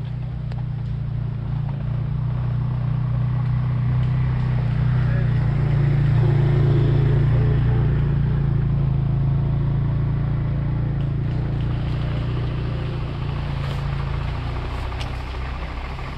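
Low engine drone that grows louder toward the middle and then fades again, as a motor passes by.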